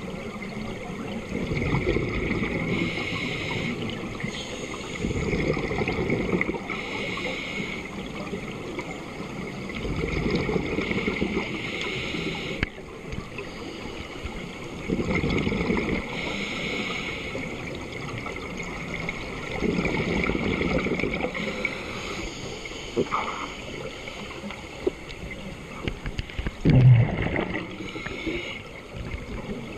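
Scuba regulator breathing underwater: bursts of exhaled bubbles gurgling about every four to five seconds. There is a louder thump near the end.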